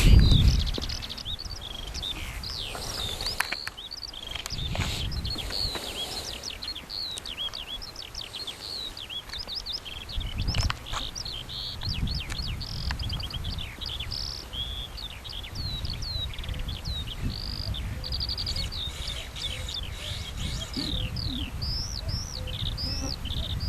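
Songbirds chirping and calling: many short, quick notes throughout, over a low rumble that comes and goes. A louder low noise fades out within the first second.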